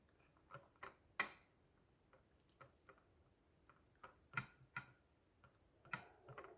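Close-miked eating sounds: faint, irregular sharp clicks and smacks of a mouth chewing, about nine in all.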